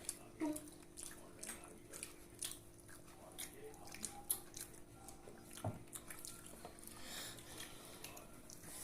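Quiet eating sounds: a scatter of small wet clicks and smacks of chewing and fingers on food, over a steady faint hum.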